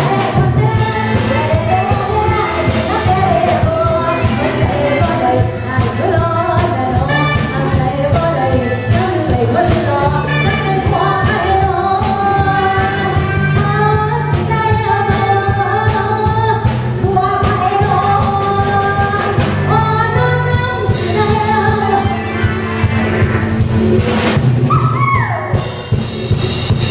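Live luk thung band music played loud, with a woman singing the lead over a steady drum and bass beat.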